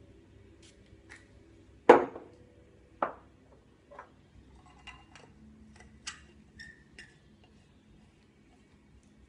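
Metal pipe fittings knocking and clinking against a glass tank: two sharp knocks about two and three seconds in, the first the loudest, then a run of lighter clicks and taps.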